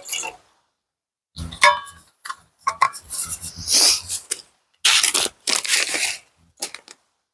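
Metal camp cookware being handled: a string of short clinks and rattles, some with a brief metallic ring, mixed with rustling and scraping, as rice is started in the pot.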